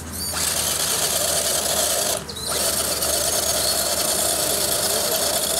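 RC scale crawler's electric motor and gear drivetrain whining steadily under throttle as the truck strains over a log, hung up on its skid plate. The whine drops out briefly about two seconds in, then picks up again.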